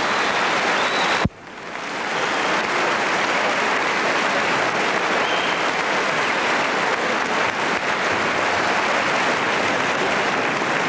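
Audience applauding steadily, with a brief cut about a second in where the sound drops out and fades back up.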